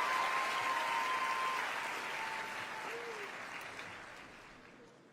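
Studio audience applauding, the clapping fading away steadily to near silence by the end.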